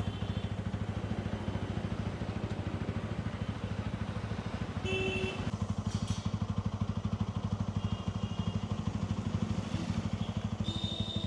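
TVS Ronin's single-cylinder engine idling steadily with an even, rapid pulse, kept running for a chain lube.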